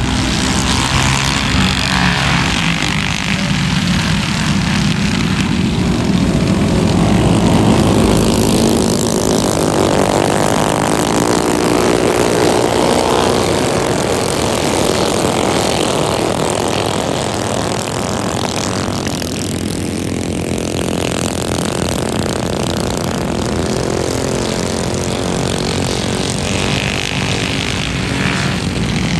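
A pack of racing mini bikes, their small engines buzzing together and revving up and down. The sound swells as the pack passes and is loudest about a quarter of the way in.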